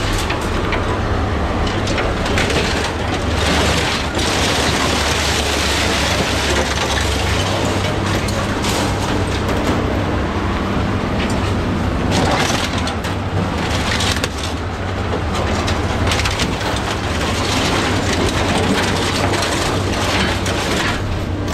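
Scrap-handling machine with an orange-peel grapple working a scrap pile: a steady low machine hum under irregular crunching and clanking of scrap metal.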